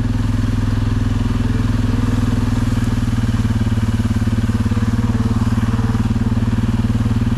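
Quad bike engine running steadily at an even cruising speed, with a fast, even exhaust beat.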